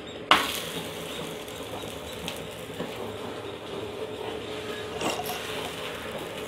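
A raw radish-stuffed paratha dropped onto a hot, oiled iron tawa about a third of a second in, then sizzling steadily in the oil with a few light crackles.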